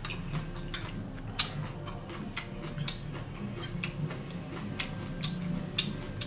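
Eating noises close to the microphone: chewing and smacking of the lips, heard as irregular sharp clicks about once or twice a second over a low steady hum.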